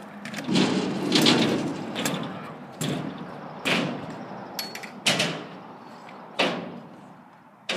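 A kick scooter rolling over skatepark pavement with a rumble, then about five sharp, hollow bangs roughly a second apart as scooters strike the park's ramps.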